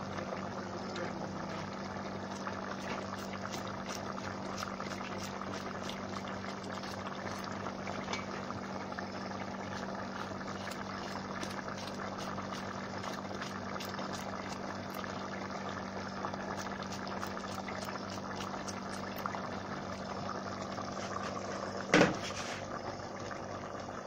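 Saltfish stew in coconut juice bubbling at a boil in a metal pot, a steady seething with many small pops over a low hum. A single short knock near the end.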